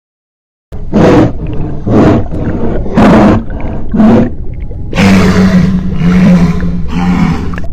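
Hippopotamus calling: four short, loud pulses about a second apart, then a longer call held at a steady pitch.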